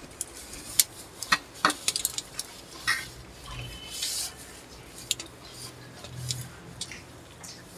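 Cutlery clinking and scraping against plates in scattered light clicks while noodles are being eaten.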